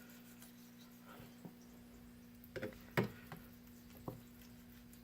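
A knife cutting a chicken breast away from the carcass: a few soft clicks and taps, the loudest about three seconds in, over a faint steady hum.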